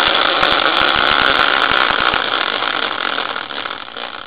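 Homemade prize wheel spinning on a caster, its pointer rattling rapidly against the studs on the rim, then fading as the wheel slows down.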